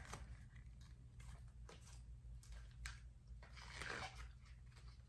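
Faint handling noise from a spiral-bound paper scrapbook album held in the hands: a few light scattered clicks and a soft rustle about four seconds in, over a low steady room hum.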